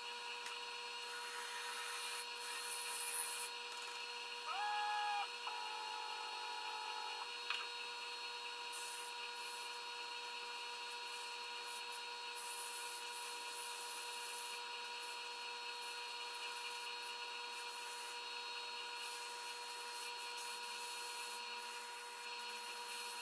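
EMCO Compact 5 PC lathe running with a steady whine of several tones, while sandpaper rubs the spinning wooden pawn in repeated stretches of hiss. About four and a half seconds in, a louder tone rises briefly in pitch and holds for about three seconds.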